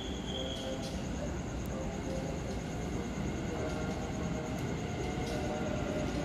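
KRL Commuter Line electric multiple unit passing through the station without stopping: a steady rumble of wheels and traction motors that grows slightly louder.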